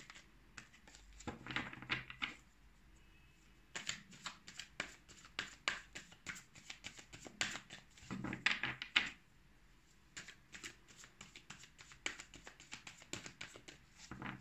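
Tarot cards being shuffled by hand: runs of rapid clicking as the cards slap against each other, in several short bursts with pauses between.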